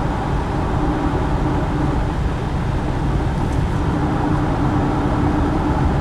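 Steady road noise of a car driving at highway speed, heard from inside: an even rumble of tyres and engine with a low hum.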